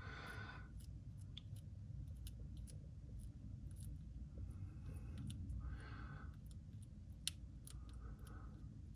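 Faint, scattered crisp clicks and crunches of a baby bearded dragon chewing a cricket, with a few soft breathy hisses.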